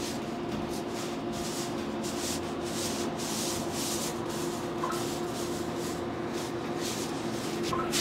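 Hands rubbing and pressing over a patient's back while the chiropractor palpates tight muscles, an uneven rubbing that swells and fades again and again over a steady background hum.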